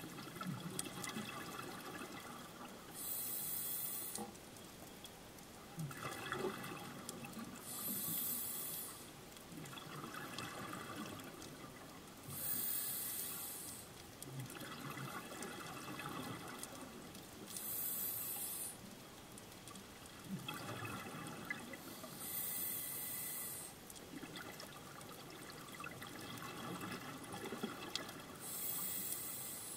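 Scuba diver breathing through a regulator underwater: a regular cycle of a hissing breath and a rush of exhaled bubbles, about six breaths, one every five seconds or so.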